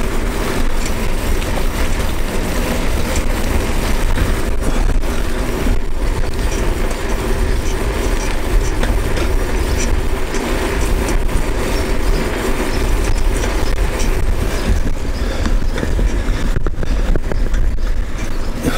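Wind buffeting the microphone over the steady rumble of a Kulana tandem bicycle's tyres rolling on asphalt, a loud, continuous rushing noise.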